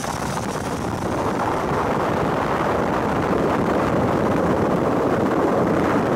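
Steady wind rush on the microphone of a vehicle travelling at road speed, over a dense road and engine noise with no distinct engine note. It grows slightly louder over the first couple of seconds.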